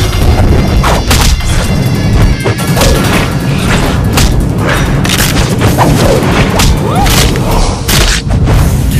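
Loud, dramatic background music with heavy booming hits and crashes.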